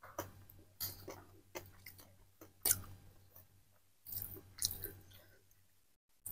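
Someone eating close to the microphone: chewing with irregular crisp crunches, about eight sharp strokes spread over a few seconds.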